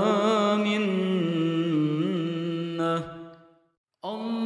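A voice chanting an Arabic dua in slow, melodic recitation with wavering ornaments. It draws out the end of the line "…wa lā minnah", which fades out about three seconds in. After a brief silence the next line begins.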